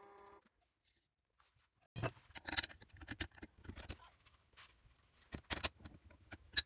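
A lathe's steady motor hum stops about half a second in. After a short silence come scattered light clicks and knocks of a wooden blank being handled and clamped into the lathe's metal scroll chuck with a chuck key.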